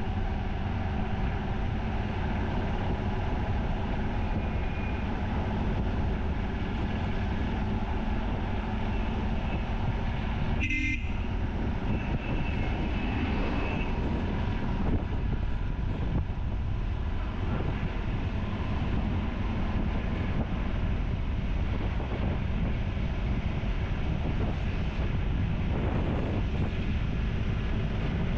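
Motorcycle riding along a highway: steady engine, road and wind noise from a bike-mounted camera. A vehicle horn toots briefly about ten seconds in, and another horn sounds a couple of seconds later.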